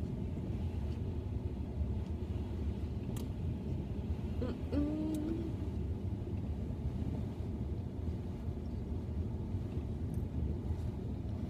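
Steady low rumble inside a parked car, with a few faint clicks and a short hum of voice about halfway through.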